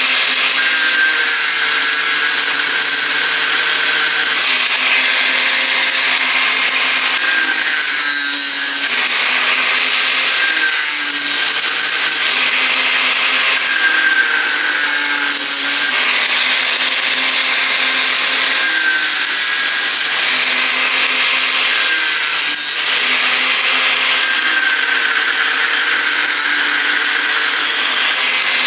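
Electric angle grinder running under load as it cuts through the copper winding of a ceiling fan coil, a steady loud whine whose pitch shifts every few seconds as the disc bites in and eases off.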